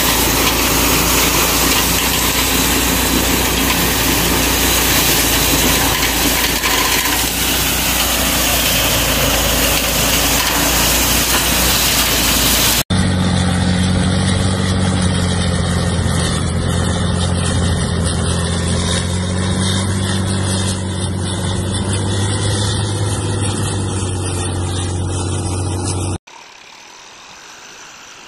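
Small petrol-engine rice thresher running, a loud dense whirring hiss over a low engine hum. About 13 seconds in it cuts to a wheel loader with a snow-blower attachment, a steady low engine drone, and near the end to a much quieter sound.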